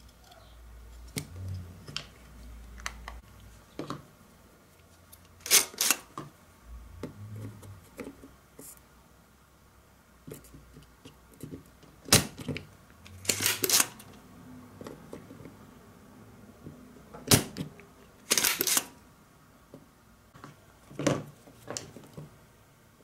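Spring-loaded desoldering pump (solder sucker) pulling solder from circuit-board joints: two sharp snaps of its plunger firing, about five seconds apart, each followed about a second later by a longer clattering burst, with other short clattering bursts and small handling clicks around them.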